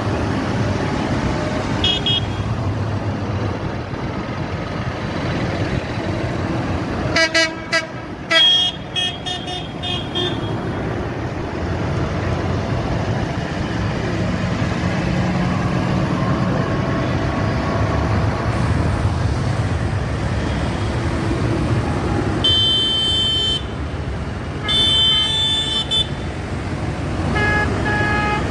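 Light-decorated tractors driving past one after another, their diesel engines running steadily. Horns toot in a burst of short blasts about a quarter of the way in, then in two longer blasts later on, and again briefly near the end.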